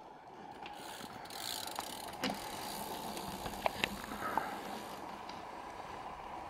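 Mountain bike ridden past on a race course: scattered clicks and rattles of the chain and ratcheting freehub, a few sharper clicks in the middle.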